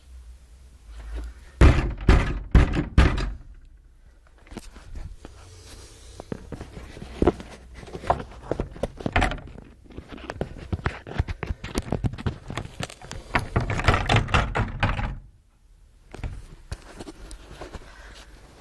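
A run of knocks and thuds: a few loud thuds about two seconds in, then quicker, irregular knocking and clatter that stops abruptly near the end, followed by a few quieter knocks.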